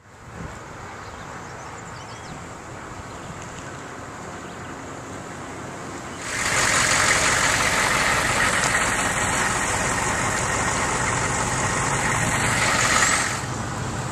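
A motor vehicle's engine running steadily, with a low hum, jumping much louder about six seconds in and dropping back near the end.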